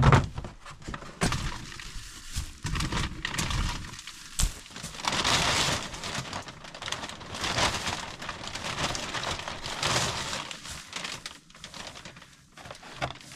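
Dry straw rustling and crunching in irregular handfuls as it is stuffed into an outdoor cat shelter, with a few knocks.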